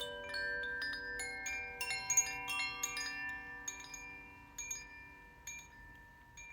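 Koshi chime being gently swung, its inner clapper striking the tuned metal rods at random. The overlapping ringing notes grow sparser and fade toward the end.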